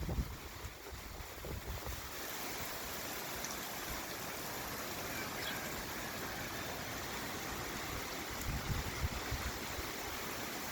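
Steady rain falling with a continuous even hiss. Gusts of wind buffet the microphone with low rumbles at the start and again about eight to nine seconds in.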